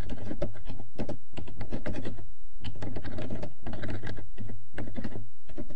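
Typing on a computer keyboard: quick runs of keystrokes with brief pauses between them, over a steady low hum.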